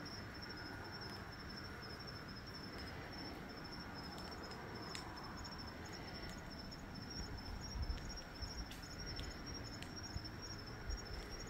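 Crickets chirping: a steady, high, finely pulsing trill, with a few faint clicks and some low rumbles in the second half.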